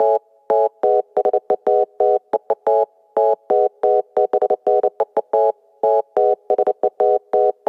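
Loud electronic beeping: one steady-pitched tone keyed on and off in quick short and longer beeps, in an uneven, Morse-code-like pattern.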